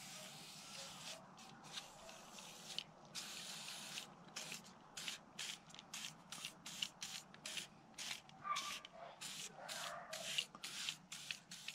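WD-40 aerosol can spraying onto a rusty motorcycle exhaust header in a run of hissing bursts. The first few bursts are longer, up to about a second each, and then come many short, quick squirts.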